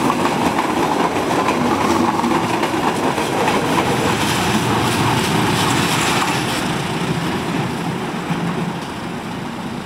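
Passenger coaches rolling past on the rails, with steady loud wheel-on-rail noise. It fades from about six and a half seconds in as the end of the train moves away.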